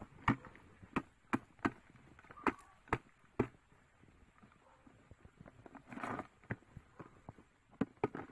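A run of sharp clicks and knocks, about a dozen in the first three and a half seconds, then a short rustle and a few more clicks near the end, as a clear plastic food container with crabs inside is handled.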